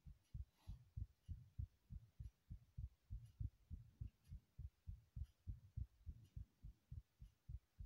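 Human heartbeat, a steady run of low double thumps (lub-dub) repeating evenly.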